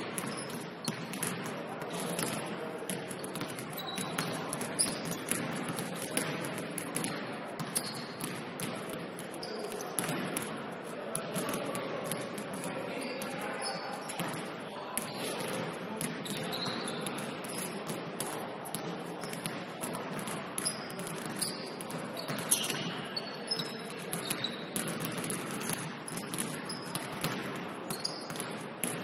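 Basketball being bounced and dribbled on a court during a game, with many sharp knocks over players' shouting and chatter and short high squeaks scattered throughout.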